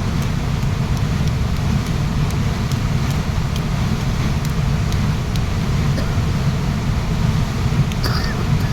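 Waterfall running: a steady, loud rush of falling water, heaviest in the low rumble. A short high-pitched sound comes near the end.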